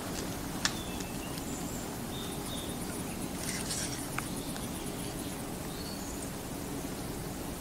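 Steady outdoor rushing ambience, with a few short high bird chirps and a couple of sharp clicks, about half a second in and about three and a half seconds in.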